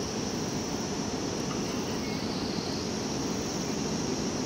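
Steady outdoor ambience: a high, even insect drone over a low rushing noise.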